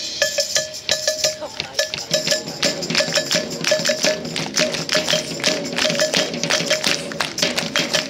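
High school brass band with drums playing a lively piece: short, repeated staccato brass notes over quick drum strikes. Fuller low brass chords come in about two seconds in.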